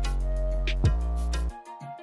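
Instrumental background music with a beat and deep held bass notes, dropping away about a second and a half in.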